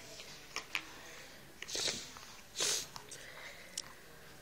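Two short, breathy hissing bursts, like a snort or a hard exhale, about two and two and a half seconds in, with a few light clicks of plastic toys being handled.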